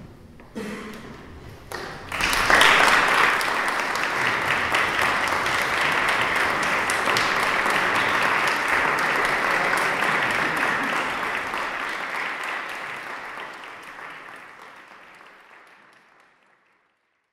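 Concert audience applauding at the end of a performance. The applause breaks out about two seconds in, holds steady, then fades away near the end.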